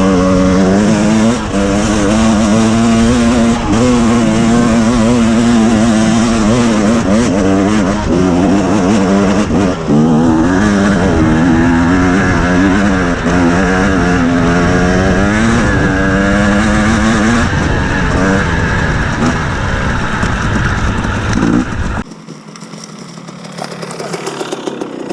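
KTM 250 EXC two-stroke dirt bike engine running under load, its pitch rising and falling with the throttle. Near the end the engine sound drops away suddenly to a much quieter level.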